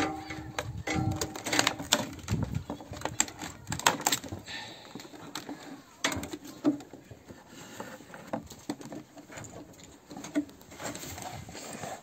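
Handling noise of a plastic bottle on a round metal tray: irregular clicks, knocks and rustling as the bottle and tray are turned and adjusted by gloved hands.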